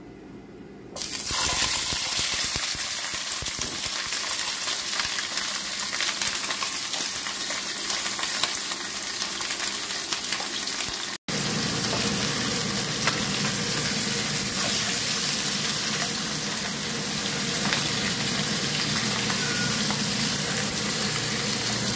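Whole fish frying in hot oil in a pan. After a quiet first second, a loud, steady sizzle with crackling starts suddenly as the fish goes into the oil. It cuts out for an instant about eleven seconds in, then carries straight on.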